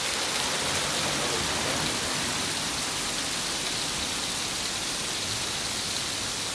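Hail falling in a steady, dense patter of hailstones on the ground and surroundings, heard as an even hiss with no single hits standing out.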